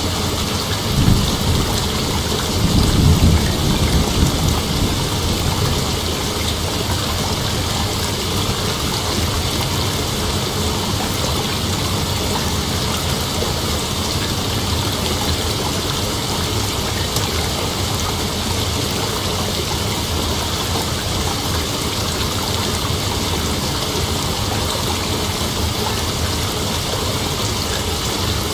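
Dense, steady chorus of night insects, an unbroken high hiss, with a few low rumbles in the first few seconds.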